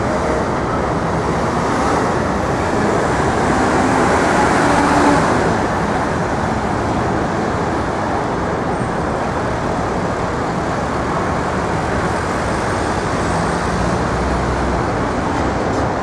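Steady city street traffic noise, a constant rush of passing vehicles, swelling a little louder about five seconds in.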